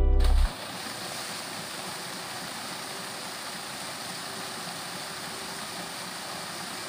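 Paddlewheel pond aerator running on its working test after a motor and bevel-gearbox repair: its spinning paddle wheels churn the water into a steady, even rush of splashing spray.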